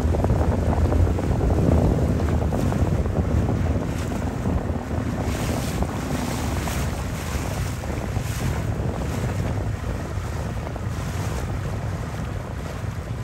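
Wind buffeting the microphone over the rush and splash of water around a small sailing dinghy under way. It eases off gradually.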